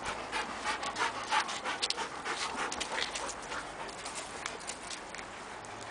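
Central Asian Shepherd dog breathing hard in quick panting or sniffing breaths, several a second, tapering off after about three seconds.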